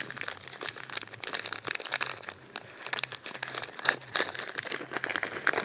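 Small clear plastic parts bag crinkling irregularly as fingers work inside it to pick out chainsaw chain connector links.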